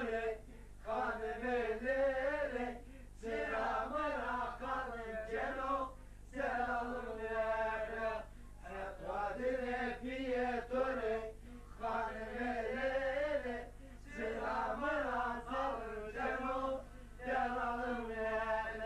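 Men singing a folk song without instruments, in wavering phrases of a second or two with short breaks between them.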